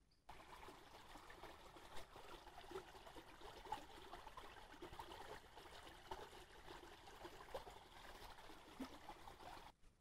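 Small shallow forest stream trickling and babbling over leaf litter and dirt, a steady running-water sound that cuts in just after the start and cuts off shortly before the end.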